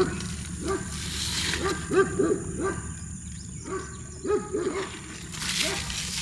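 An animal calling in a rapid series of short, pitched yips, about two or three a second, with a brief rustle about a second in and again near the end.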